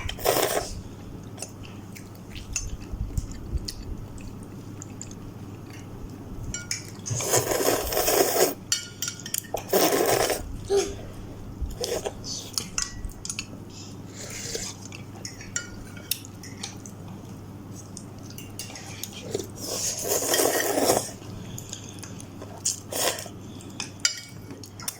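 Spoon and fork clinking and scraping against a bowl of instant noodles during eating, with many small clicks and a few louder noisy bursts about a second long.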